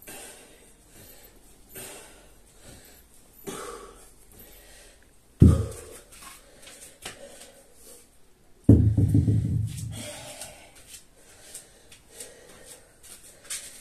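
A man breathing out hard about every two seconds with the last kettlebell swings. Then come two heavy thuds on the rubber floor mat, a short one around the middle and a louder, longer one with a low rumble a few seconds later.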